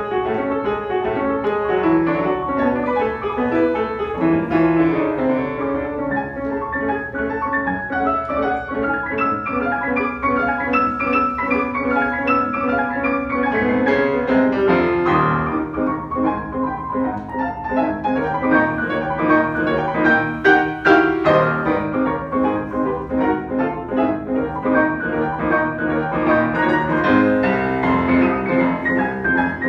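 Grand piano played four hands, a duet tarantella: a dense stream of rapid notes across the keyboard.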